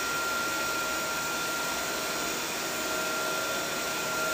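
Okara (tofu-waste) drying plant running, a steady even hiss with a thin high whine, as the dried okara pours from its metal discharge chute into a bulk bag.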